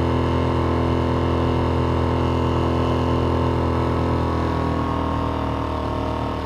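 Mariner 3.5 hp four-stroke outboard, a single-cylinder petrol engine, running steadily at wide-open throttle and driving a small inflatable. About five seconds in, its note falls slightly and gets a little quieter as it is throttled back.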